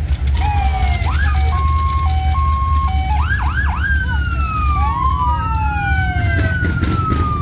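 Electronic emergency-vehicle siren cycling through its patterns: a two-tone hi-lo alternating about twice a second, then a few quick yelps, then long slow wails falling and rising, over a steady low rumble.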